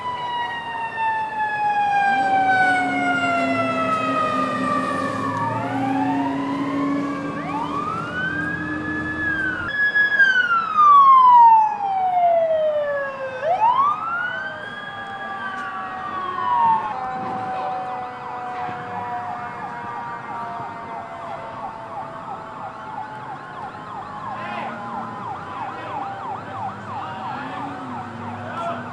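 Several emergency-vehicle sirens sounding at once, wailing in long rising and falling sweeps, loudest about ten seconds in. From a little past halfway a quieter, faster warbling siren carries on.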